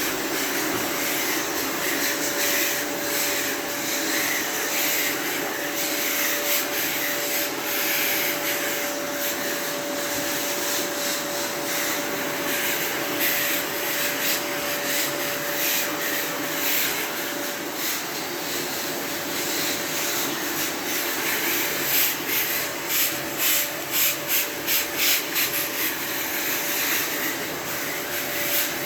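Vacuum cleaner running with a steady whine while its nozzle is rubbed through a Labrador's coat in repeated strokes. The strokes come faster and more evenly, about two a second, near the end.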